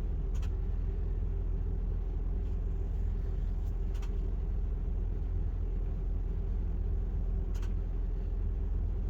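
Propane generator running steadily, in the few-minute warm-up before it takes over the RV's power. Three faint clicks come over the hum.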